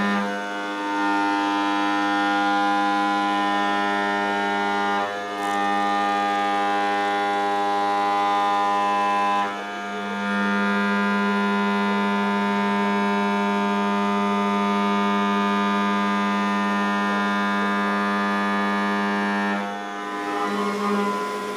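CNC machining center milling a billet aluminum block: a loud, steady whine of several tones from the cutting, dipping briefly four times.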